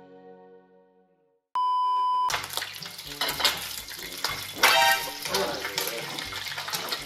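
Outro music fades out, then after a moment of silence a steady high test-tone beep sounds for under a second. Then comes kitchen sound: oil sizzling in a frying pan on a gas stove, with clicks and clatter of cookware and brief voices.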